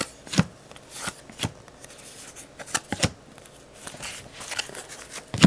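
Baseball trading cards being flipped through one by one: a series of sharp card snaps and light rustling as each card is moved to the back of the stack.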